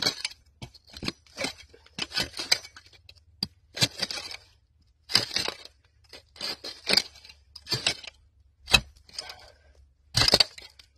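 Long-handled metal hand claw raking and scraping through packed ashy dirt, in repeated short strokes, over a dozen in all, with a sharper strike near the end.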